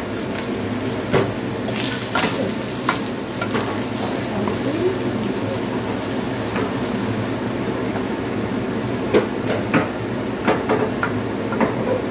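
Beaten eggs sizzling in hot oil in a nonstick wok, with a wooden spatula scraping and knocking against the pan as the omelette is turned and broken up; the sharp knocks come every second or so over the steady sizzle.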